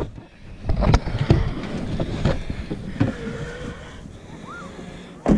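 Several knocks and thumps of plastic coolers and gear being set onto a car's back seat, with a faint steady hum in the second half.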